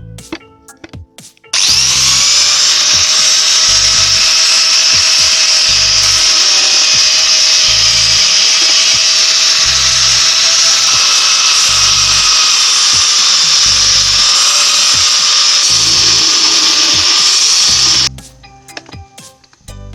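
An electric power tool's motor spins up with a brief rising whine about a second and a half in, runs loud and steady, then stops abruptly near the end. Background music with a steady beat plays underneath.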